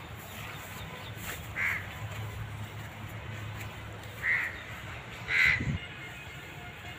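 Three short, harsh bird calls, about a second and a half in, at about four seconds and at about five and a half seconds, over a low steady background hum.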